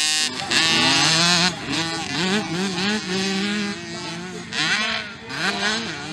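Small two-stroke mini motocross bike engines revving up and down as the riders accelerate and shift, loudest about half a second to a second and a half in as a bike passes close.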